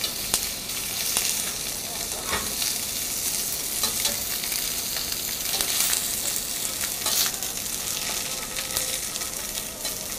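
Foie gras and pieces of meat sizzling in hot olive oil in a copper sauté pan, with occasional sharp clicks as a utensil turns them against the pan.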